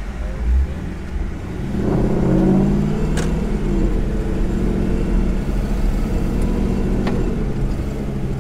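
Yellow Jeep recovery rig's engine picking up revs about two seconds in, then running steadily under light throttle as it drives across rough ground. Two or three sharp clicks over the engine.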